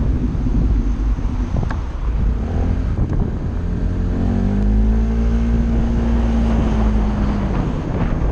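Honda SH 125i scooter's single-cylinder four-stroke engine pulling away: its note rises about three seconds in, holds steady, then eases off near the end. Heavy wind buffeting on the microphone runs underneath.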